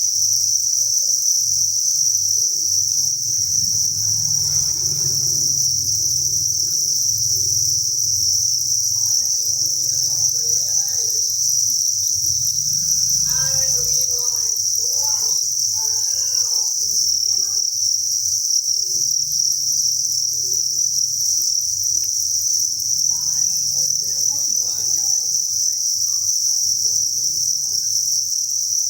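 Dense, steady chorus of thousands of farmed crickets chirping together, a continuous high-pitched trill with no breaks. Faint voices murmur underneath now and then.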